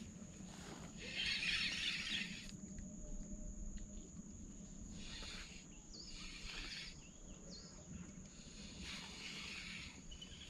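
Quiet riverbank ambience: a few faint bird chirps, with short rustling noises now and then.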